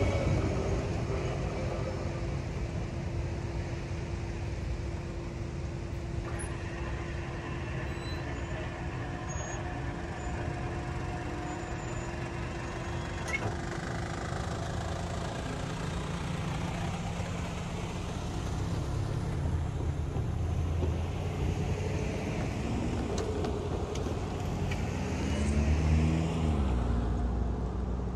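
Low, steady road-and-rail rumble at a railroad crossing after the train has passed, with no crossing bell ringing. Near the end a car drives by, swelling in level and sliding in pitch as it passes.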